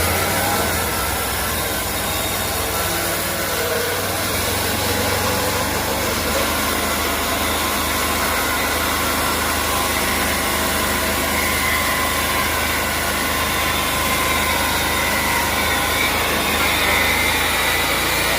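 Sawmill running and sawing a board off a black walnut cant, a steady loud machine noise throughout.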